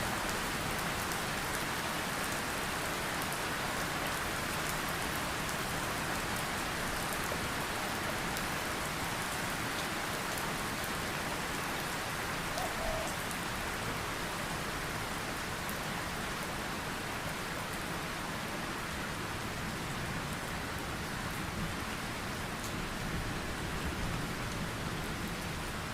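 Heavy rain falling steadily, an even hiss of many drops striking surfaces.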